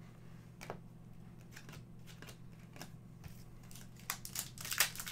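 Trading cards and a rigid plastic toploader being handled, with scattered light clicks and rustles. About four seconds in, the foil wrapper of a hockey card pack crinkles louder as it is picked up.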